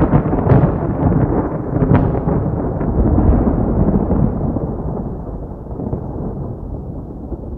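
Rolling thunder rumbling, with a few sharp cracks in the first two seconds, then slowly dying away and growing duller.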